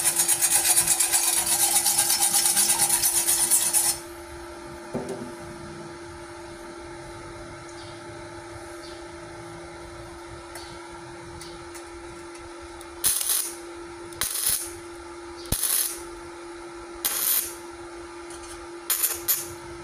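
A steel wire brush scrubbing thin light-gauge steel in fast strokes, stopping about four seconds in. Then, over a low steady hum, five short crackling bursts of a gasless flux-core MIG welding arc, each about half a second: short tacks, because the 0.7 mm light steel is too thin for a long weld.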